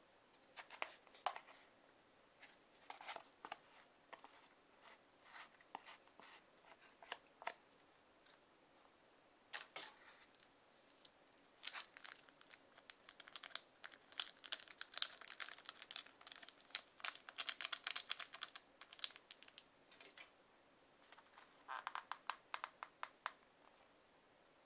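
A small seasoning sachet of sansho pepper torn open and crinkled between the fingers: a dense run of crinkling and tearing about halfway through, lasting several seconds. Scattered soft clicks and rustles come before it, and a short run of ticks near the end.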